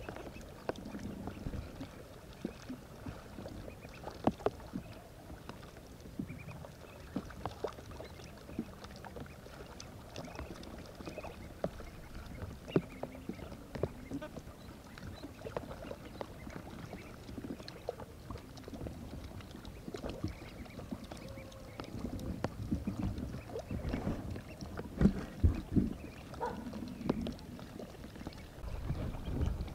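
Water sloshing and splashing in irregular bursts, with scattered knocks and clicks, busier and louder near the end.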